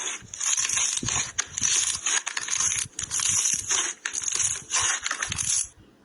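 Loud crunching, crackling sound made for ASMR, in bursts of about a second with short breaks between, stopping abruptly near the end.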